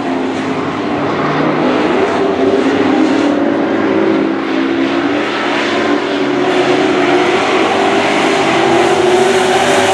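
Super trucks racing on a dirt oval, their engines running hard at high revs. The engine pitch rises and falls as they power down the straights and lift through the turns.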